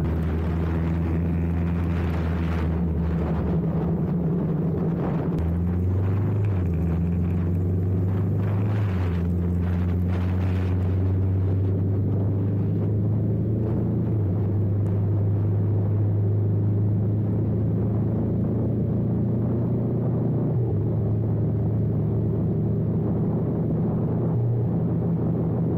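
Honda CBR500R's parallel-twin engine running at a steady cruise, its pitch stepping up and down a few times, under a hiss of wind and rain noise that eases off about halfway through.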